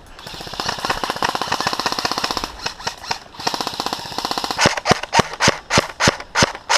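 Airsoft gun fire: a rapid full-auto stream of shots for about four and a half seconds, then single shots in quick succession, about three or four a second.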